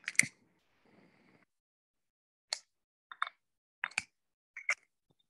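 A handheld lighter being struck several times to light a candle: a series of short, sharp clicks in the second half, about one every 0.7 seconds.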